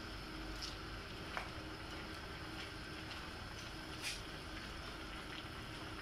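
Vegetables sizzling in a frying pan as they are stir-fried: a steady hiss with a few light clicks of a wooden spatula against the pan, the sharpest about a second and a half in and about four seconds in.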